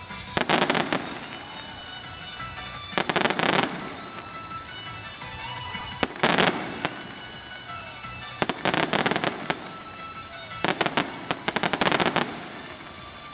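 Fireworks display: five volleys of rapid bangs and crackles about every two to three seconds, the last one the longest, over faint background music.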